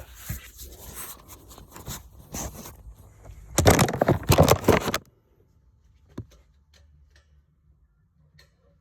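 Scraping and rattling handling noise, loudest from about three and a half seconds in, then cutting off sharply to a low hum with a few faint ticks at about five seconds.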